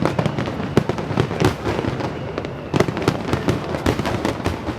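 Fireworks display: a rapid, irregular run of shell bursts and crackling reports, several per second, with no let-up.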